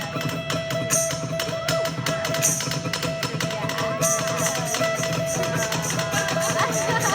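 A live band playing through a venue's sound system during a sound check: drum kit with steady, regular cymbal strokes, electric guitar, and a long held note.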